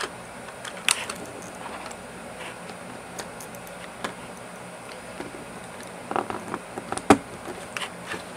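Plastic parts of a Hot Wheels playset clicking and knocking as the tail piece is fitted onto the base: scattered sharp clicks, a quicker run of them about six seconds in, and the loudest click just after seven seconds.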